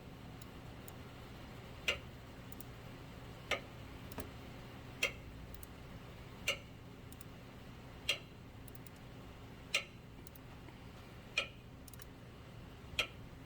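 Ratchet wrench clicking, one sharp click about every second and a half at an even pace, while the alternator's mounting bolts are run in, over a faint steady hum.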